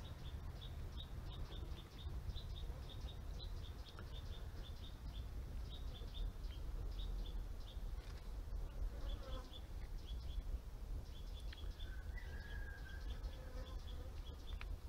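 Insect chirping outdoors: short, high chirps repeating about three times a second, over a steady low rumble.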